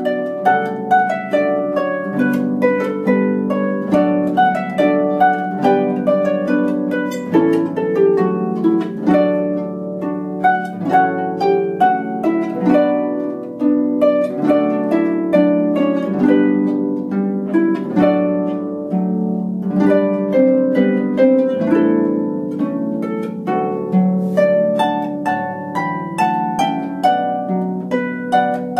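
Background instrumental music: a harp playing a continuous run of plucked notes.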